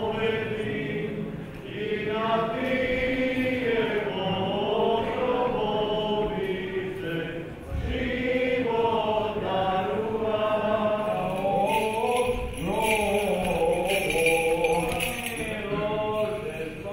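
Orthodox liturgical chant sung by cantors at the church's choir stand, sustained melodic lines without a break.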